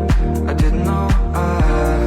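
Background pop/R&B song with a steady beat and bass; an instrumental stretch between sung lines.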